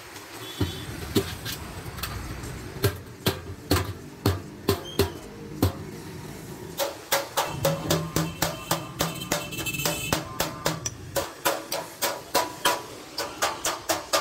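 Hand hammer striking the folded rim of a sheet-metal milk can, seaming the bottom onto the body. Sharp ringing metal blows come irregularly at first, then in a steady run of about three a second from about seven seconds in.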